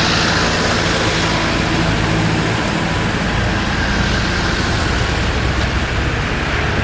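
Steady road-vehicle noise: an even rush with a low engine hum underneath.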